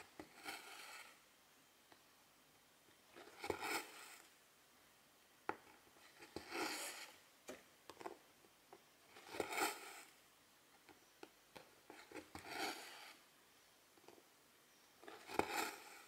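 Silk embroidery thread pulled through cross-stitch fabric, six short rasping swishes about three seconds apart, with faint clicks of the needle between.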